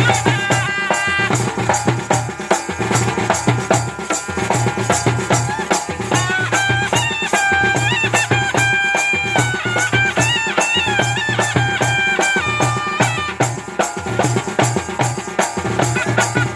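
Kodava valaga folk music: fast, steady drumming with rattling percussion, and a wailing melody line over it that is most prominent in the middle.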